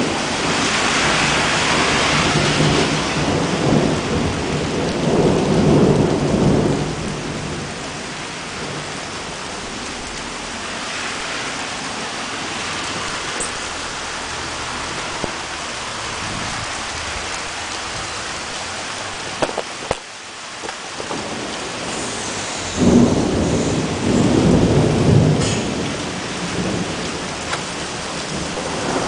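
Heavy rain pouring steadily during a thunderstorm, with long rolls of thunder: one rumbling over the first several seconds and another starting sharply about two-thirds of the way through.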